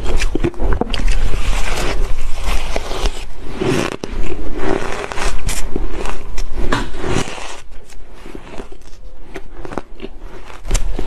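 Close-miked crunching and chewing of a mouthful of shaved ice dusted with matcha powder: dense, irregular crackling that thins out after about seven seconds. Near the end a metal spoon scrapes through the ice.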